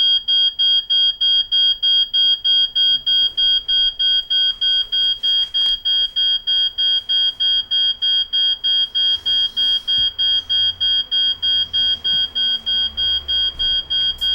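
Smoke alarm sounding: a loud, high electronic beep repeating rapidly, about three to four beeps a second, as burnt cooking sets it off. It stops abruptly at the very end.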